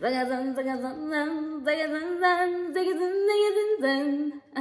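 A woman singing a short melody, holding a string of notes whose pitch steps up and down, with a brief break near the end.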